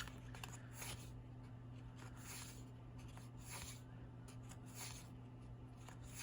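Soft swishes of trading cards sliding over one another as a booster pack's cards are flipped through, about one every second, over a steady low hum.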